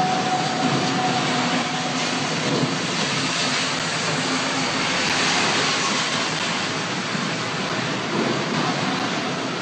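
The odd sounds at One World Trade Center: a steady rushing roar with faint held whining tones that fade out after about two seconds.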